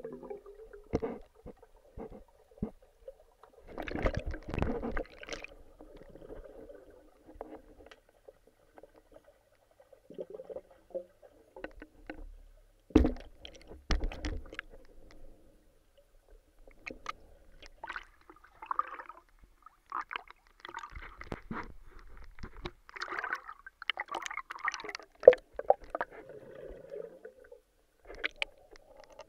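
Underwater water sounds around a swimmer: irregular gurgling and bubbling with scattered sharp clicks and knocks, heard with the microphone submerged.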